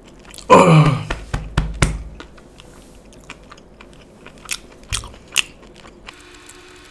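A man's loud burp about half a second in, its pitch falling as it goes, followed by a few short mouth clicks and smacks.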